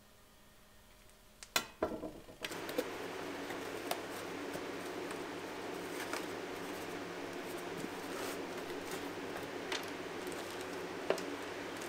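Handling noises: a cardboard box being opened and a plastic bag being handled, heard as scattered light clicks and taps. A few sharp clicks come about a second and a half in, and a steady background hiss starts just after.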